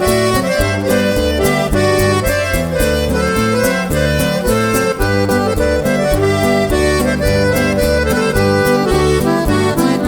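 Norteño band playing an instrumental break, the accordion carrying the melody over a bass line and a steady beat.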